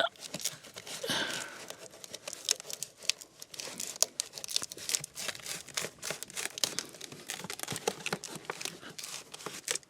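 Hands pressing and rubbing a car's floor carpet down firmly onto double-sided carpet tape: a long run of irregular rustling, scratching and crackling.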